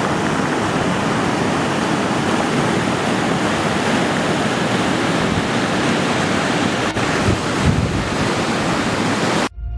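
Muddy floodwater pouring over a road edge and cascading down a concrete wall into a ditch, a loud steady rush. Wind buffets the microphone briefly near the end.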